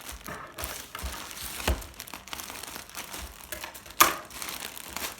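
A bag crinkling and rustling as figures are pulled out of it, with a few sharp knocks, the loudest about four seconds in.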